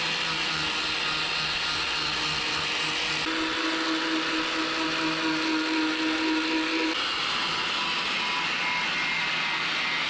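Angle grinder with an abrasive disc running continuously while grinding paint off car-body sheet steel down to bare metal. The steady whine shifts in pitch about three seconds in and again near seven seconds.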